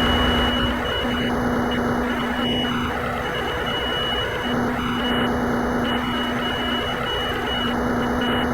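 Steady machine noise from a Swansoft CNC lathe simulator: a hiss with a constant low hum and a thin high whine, like a lathe spindle running.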